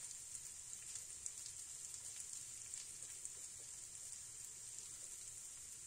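Masala-coated prawns frying in oil in a nonstick pan: a faint, steady sizzle with scattered small crackles.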